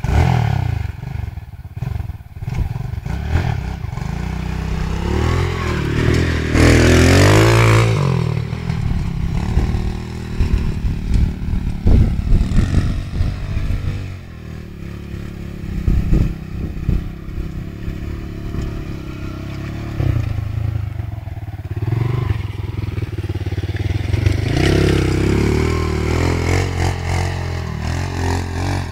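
Sport quad ATV engine being ridden hard, its revs rising and falling, with a strong surge of revs about seven seconds in and another near the end as it climbs a sand bank.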